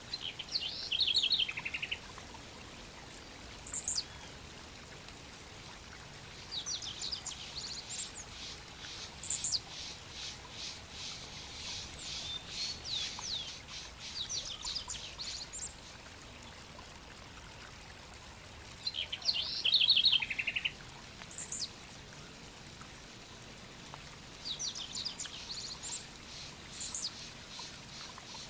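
Small songbirds calling: bursts of high chirps and quick trills every few seconds, some phrases coming again in the same shape, over a steady background hiss.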